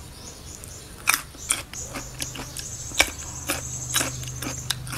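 Fingers picking through a wet salad of balut duck eggs: irregular soft clicks and taps of food being handled. A low steady hum comes in about two seconds in.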